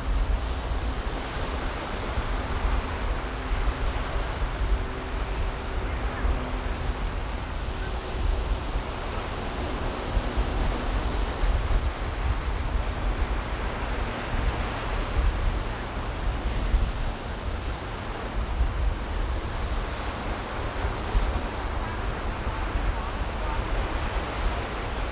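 Steady rush of ocean surf on a beach, with wind buffeting the microphone in uneven low gusts.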